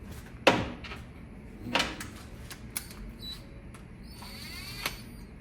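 Sharp metallic clanks of tools and parts being handled while a timing chain guide is fitted to the engine, the loudest about half a second in and another near two seconds, with a few lighter ticks and a brief whir near the end.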